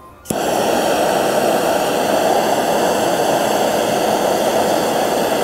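Hand-held propane torch lighting with a sharp click about a third of a second in, then burning with a loud, steady hiss.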